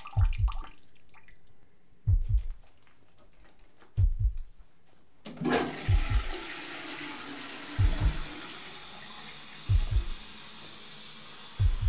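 Slow heartbeat thumps, a double beat about every two seconds. About halfway through, a toilet starts flushing, and the rush of water carries on steadily under the beats.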